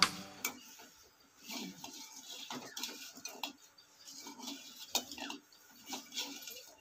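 Metal spatula scraping and clinking against the inside of an aluminium kadai as its contents are stirred: faint, irregular scrapes and light taps, with a few sharper clinks about halfway through.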